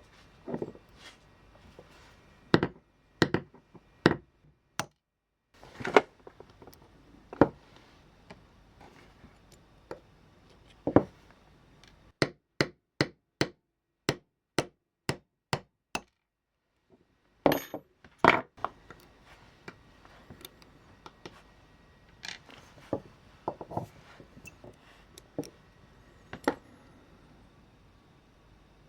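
Sharp clicks, taps and clinks of small tools and parts being handled on a workbench while a Märklin 3029 model locomotive is dismantled. About halfway through comes a run of evenly spaced clicks, two or three a second.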